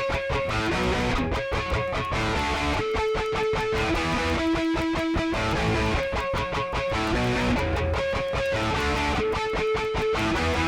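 Instrumental intro music led by plucked guitar, playing a repeating riff at an even level.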